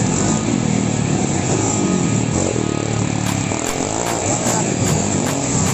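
Motorcycle engine on a dirt race track revving up and easing off again and again, its pitch rising and falling as the rider works the throttle.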